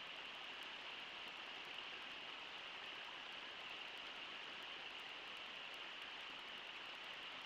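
Steady rushing of river water running over shallow riffles, an even hiss with no breaks.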